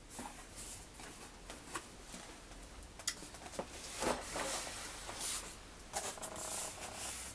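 Rustling and light knocks of packaged craft items and ornaments being handled and lifted out of a box.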